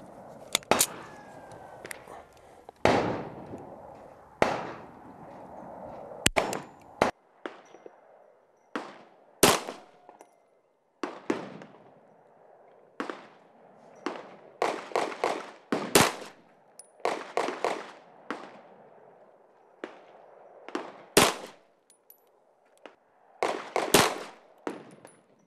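Colt Competition 1911 pistol in 9mm firing a string of single shots of 124-grain full metal jacket ammunition. The shots come roughly one to two seconds apart, each a sharp crack with a short ringing tail.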